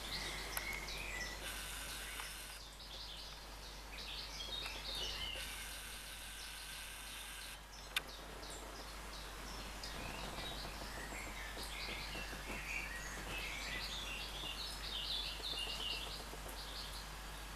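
Small birds chirping, many short high calls overlapping, over a steady low hum. A stretch of hiss comes in the first half, and there is a single sharp click about eight seconds in.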